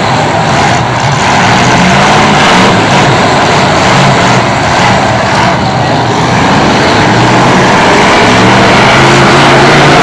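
Many demolition derby cars' engines running and revving at once in a loud, dense mix, growing a little louder near the end.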